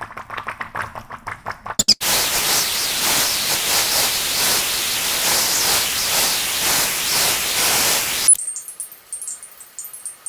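A rapid run of sound effects sped up ten times. Quick clicks come first, then about six seconds of loud, dense hiss that cuts off suddenly, then faint high tinkling.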